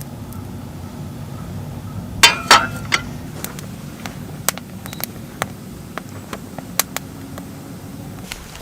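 Two light clinks with a short ring a little after two seconds in, followed by scattered small ticks and taps, over a steady low hum.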